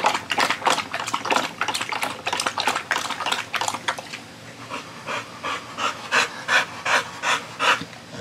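American bully dog lapping water quickly from a plastic bowl, about five laps a second. About halfway through it lifts its head and pants in a slower rhythm, out of breath from running fetch.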